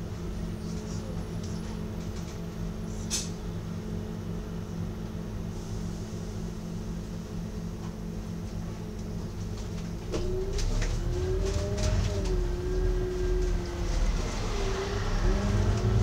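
Double-decker bus engine idling steadily, heard from inside the bus. About ten seconds in, the engine note gets louder and its pitch climbs and dips as the bus pulls away and accelerates.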